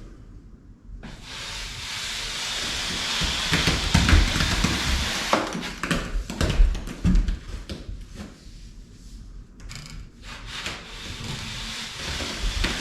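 Popcorn ceiling texture being scraped off with a hand scraper: a rasping, hissing scrape with some knocks. It starts about a second in, eases off for a couple of seconds near the end, then resumes.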